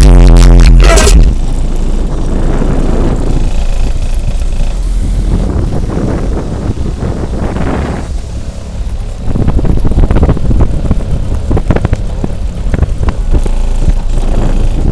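10-inch Pioneer TS-W2504SPL subwoofer in a ported box playing deep bass very loud, overloading the recording. After about a second the music gives way to a rougher, steady low bass with irregular crackles.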